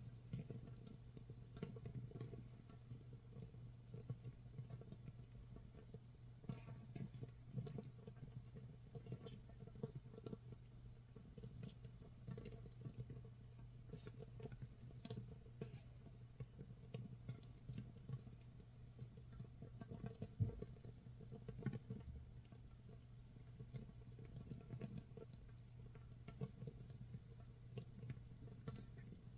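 Makgeolli starter mash fermenting in an earthenware jar a day in: a faint, irregular crackle of small pops as gas bubbles burst, like light rain or sizzling, over a steady low hum.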